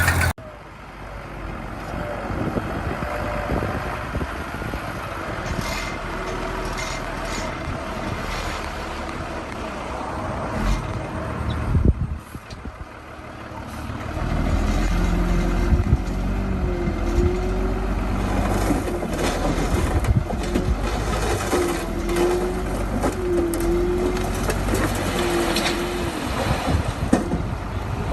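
Heavy earthmoving machinery running at work: a steady diesel engine with scattered clanks and knocks. It grows louder about halfway through, with short wavering whines recurring.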